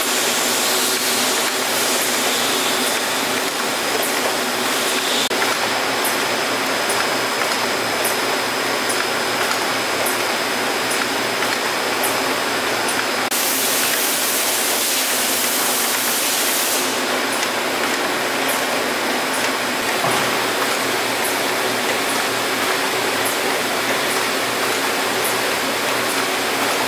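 Stelron conveyor walking beam assembly chassis running: a steady machine noise with faint ticks about once a second. A louder hiss comes in for about three seconds midway.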